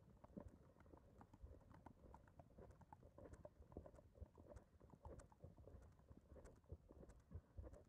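Faint hoofbeats of a ridden horse on a paved lane: an uneven run of light clicks and knocks, several a second.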